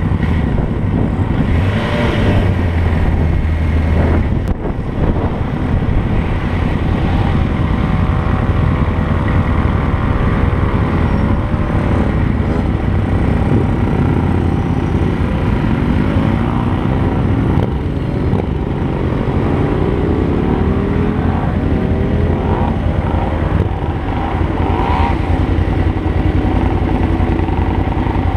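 Suzuki Bandit motorcycle's inline-four engine running as the bike is ridden, its pitch rising and falling several times as it speeds up and slows, over a steady low rush of road and wind noise.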